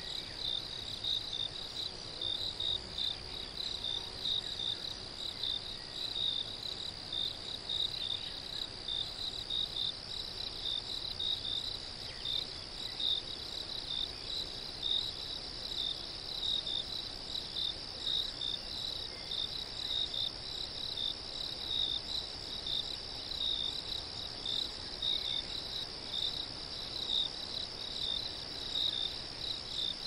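Crickets chirping: a steady high trill with a regular rhythm of pulsing chirps layered over it, unbroken throughout.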